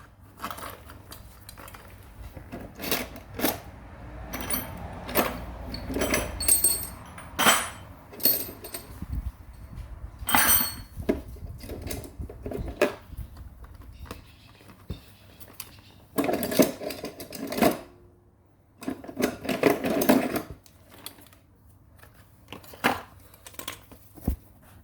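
Clicks, taps and clattering of hard plastic parts being handled and worked loose, with a few sharper knocks. There are two longer scraping, rustling stretches about sixteen and nineteen seconds in.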